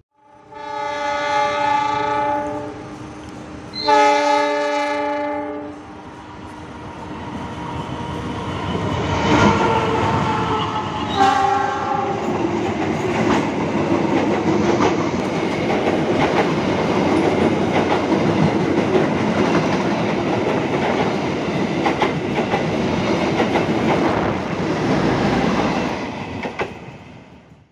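Train horn sounding two long blasts, about two seconds each, then a train passing close by with a steady rumble and the clatter of wheels over rail joints, fading near the end.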